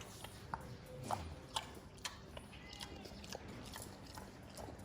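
Faint, irregular clicks and taps, like steps or hooves on hard ground, with a brief faint high call about midway.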